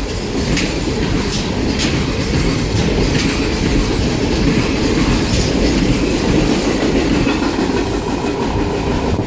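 Freight cars rolling past at close range: a steady rumble of the wheels on the rails, with irregular sharp clicks and clacks as the wheels cross rail joints.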